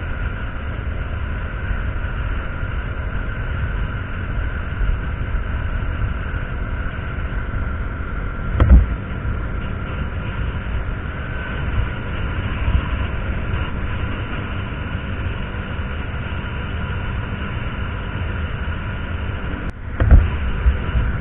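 KTM Duke 200 single-cylinder engine running steadily at highway cruising speed, with wind rushing over the microphone. Two short, loud low thumps break in, about nine seconds in and near the end.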